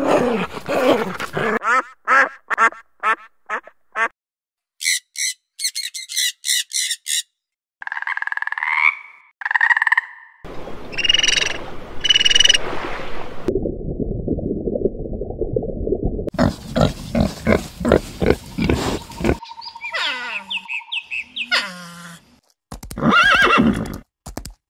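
A string of animal calls, one after another: a dog barking in short repeated barks at the start, bottlenose dolphin clicks and whistles in the middle, and a horse whinnying with falling, wavering calls near the end.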